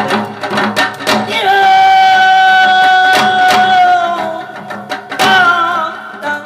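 A Korean folk singer's voice sustains one long note, then sings a shorter wavering phrase, over janggu hourglass-drum strokes that are sharpest about a second in.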